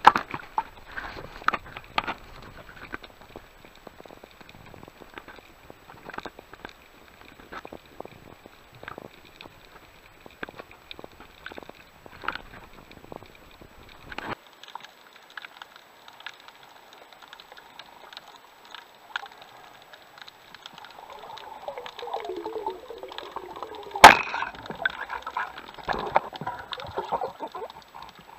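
Underwater ambience picked up by a submerged camera: scattered small clicks and crackles throughout. A bubbling gurgle comes in toward the end, with one sharp loud click in the middle of it.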